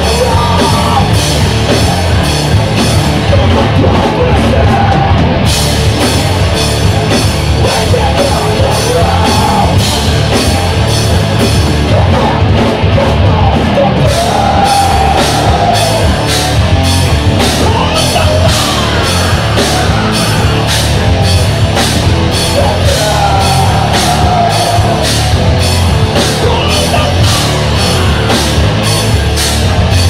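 Rock band playing live: electric guitars over a drum kit keeping a fast, steady cymbal beat, which drops out briefly twice.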